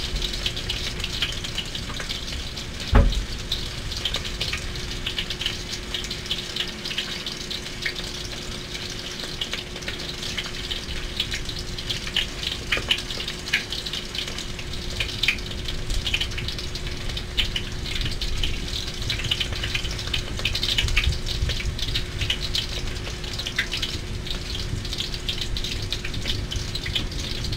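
Ground pork, carrot and bean sprout filling frying as a small patty in oil in an aluminium wok: steady sizzling with dense crackling pops. A single knock sounds about three seconds in, and a faint steady hum runs underneath.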